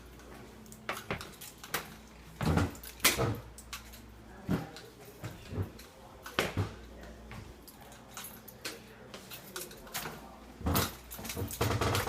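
A series of irregular knocks and thumps, loudest about three seconds in and again near the end, over a low steady hum.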